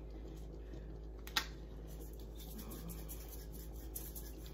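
Small clicks and taps from a seasoning shaker of garlic salt being shaken over a skillet of cream sauce. One sharp click comes about a second and a half in, over a steady low hum.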